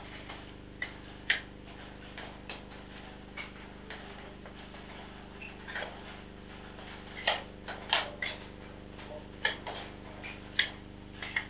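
Steady low electrical hum from a CCTV camera's microphone, with irregular sharp clicks and knocks, several close together about seven to eight seconds in.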